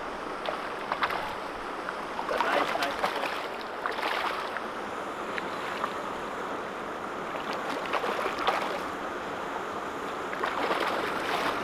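Turbulent river water rushing steadily, with several bursts of splashing as a hooked smallmouth bass thrashes at the surface.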